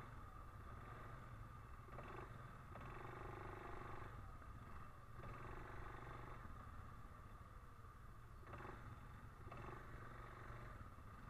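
ATV engine running at trail speed: a faint, steady low rumble, with a higher engine note coming and going several times.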